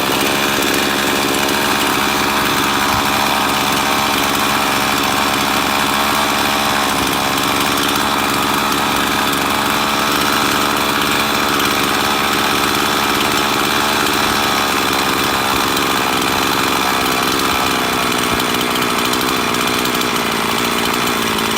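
Husqvarna 350 two-stroke chainsaw engine running steadily at a fast idle, set high enough that the centrifugal clutch keeps the chain creeping, while the high idle screw is being turned down.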